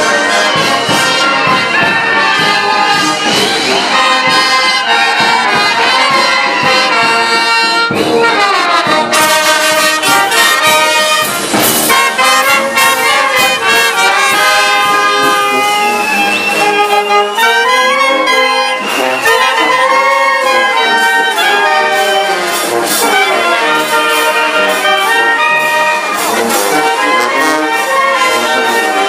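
Live brass band (banda de viento) of saxophones, trumpets and a sousaphone playing a dance tune over a steady beat.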